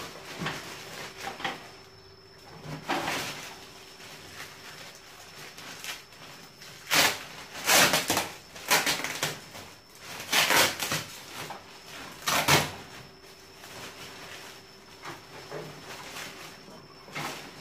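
Clear plastic wrapping film crinkling and rustling as it is handled around a folding aluminium ladder, with a few knocks; the crinkling comes in loud bursts in the middle.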